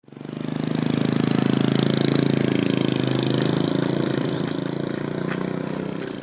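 Small motorbike engine running steadily, fading in over the first second and slowly dropping away.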